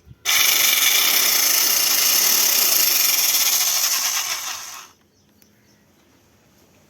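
Electric chainsaw with a 405 mm bar switched on, its motor and chain running at a steady high speed for about four and a half seconds, then switched off and winding down. This is a first run just after the chain oil has been filled.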